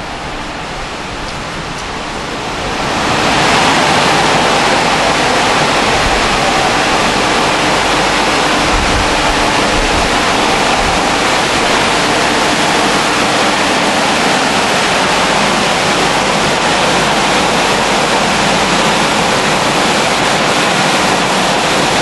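Automatic car wash dryer blowers come on about three seconds in, then blow a loud, steady rush of air over the car.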